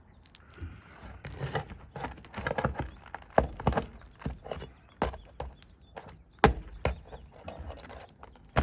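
Metal tool clicking, tapping and scraping against asphalt shingles and roofing nails in irregular knocks while the nails are worked out from under lifted shingles. The sharpest knocks come about three and a half seconds in and again about six and a half seconds in.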